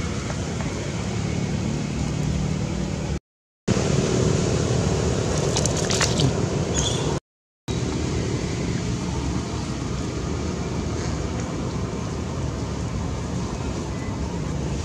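Steady outdoor rushing noise with a low rumble, broken twice by a sudden brief silence; a few faint clicks and short high chirps sit in the middle stretch.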